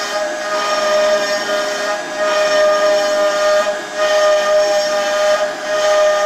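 CNC router spindle whining steadily at a high pitch as its bit mills a groove in a wooden panel, the cutting noise swelling and easing as the gantry feeds along.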